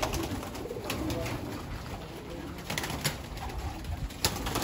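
Racing pigeons cooing in a loft: low, repeated coos, with a few sharp clicks among them.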